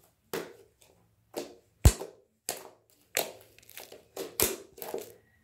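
Sticky homemade clear glue slime being squeezed and kneaded in the hands, giving irregular wet clicks, squishes and slaps, with two louder thumps about two seconds and four and a half seconds in.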